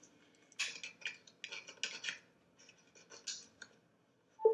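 Irregular runs of short scratching and clicking noises, mostly high-pitched, with pauses between them. A sudden steady tone starts right at the very end.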